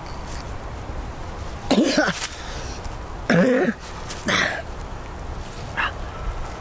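A young man coughing three times in short voiced bursts, with a fainter fourth one near the end, over a steady low background rumble.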